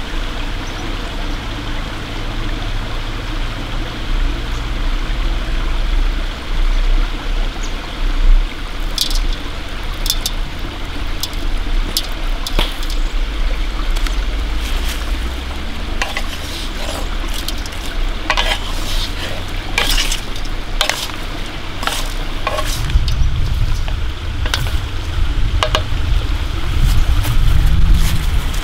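Small forest stream running steadily, with scattered sharp clicks and taps from about a third of the way in, and heavier low thuds of footsteps in leaf litter near the end.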